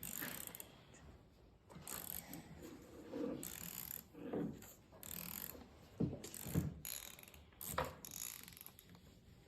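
Hand tools working on the rusted through-bolts of a 1947 Farmall A starter: irregular metallic clicks and short scrapes as the bolts are loosened.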